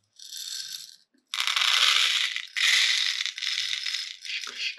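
Dried popcorn kernels pouring from a glass jar into a popcorn machine's lid, which serves as its measuring cup, rattling dryly. A short run of rattling comes first, then after a brief pause a longer pour with a few short breaks.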